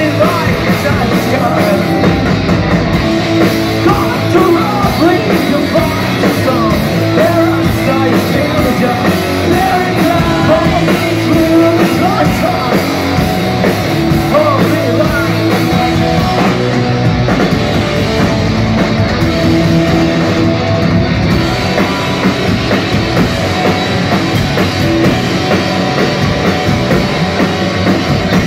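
Live punk rock band playing loud and steady: distorted electric guitars, bass and a drum kit, with singing over the top.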